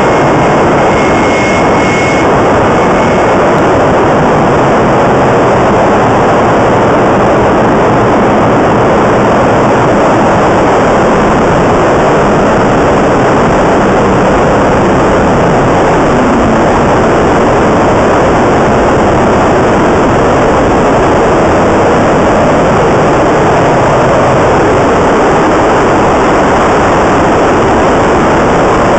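GE LM1500 industrial gas turbine running at a steady setting: a loud, even roar with no change in pitch. A faint high tone sounds briefly about a second in.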